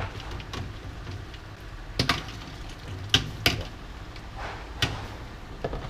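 A few sharp clicks and knocks of kitchenware, such as bowls and utensils, at a noodle stall, over a low steady hum.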